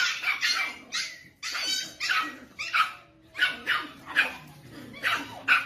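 A dog barking in a run of about a dozen short barks, roughly two a second.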